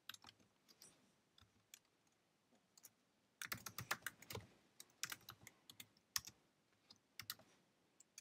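Typing on a computer keyboard: faint keystrokes in short irregular runs, most dense from about three and a half seconds in.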